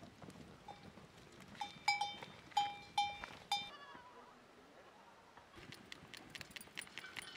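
Goats and sheep calling with a run of short, high bleats, the last one falling away. Near the end come light patters and clicks as drained rice is tipped into a pot of water.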